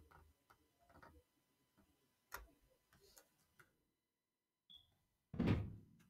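Faint computer mouse clicks, a few scattered sharp ticks, as a line is drawn on a slide. A short, louder noise comes near the end.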